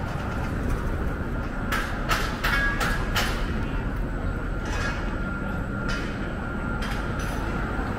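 Downtown street traffic rumbling steadily, with a faint steady high whine over it. A run of sharp metallic clicks and squeaks comes about two to three seconds in, with a few more single clicks later.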